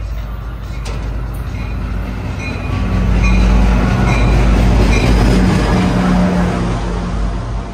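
NJ Transit F40PH-3C diesel locomotive running past with its engine droning, growing louder to a peak mid-way and easing off toward the end. Faint regular high ticks come about every two-thirds of a second.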